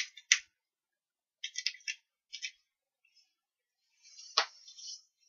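Paper and card stock handled on a craft mat: short bursts of light rustling and scraping, a click just after the start and a sharper tap a little past four seconds in.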